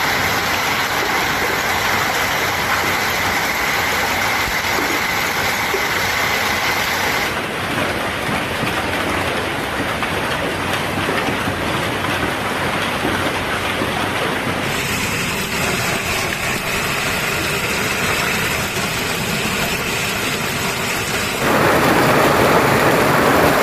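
Heavy hail and rain pelting down in a dense, steady rush of noise. The sound changes abruptly three times as the recording cuts between takes, and it is loudest in the last few seconds.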